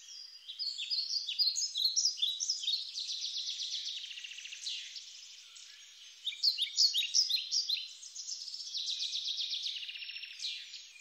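Several small songbirds singing at once, with quick high chirps and rapid trills overlapping throughout.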